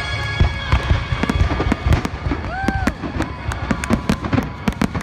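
Fireworks going off in quick succession, a rapid string of bangs and crackles, with the light show's music fading out in the first second or so. A brief whistle-like tone sounds about halfway through.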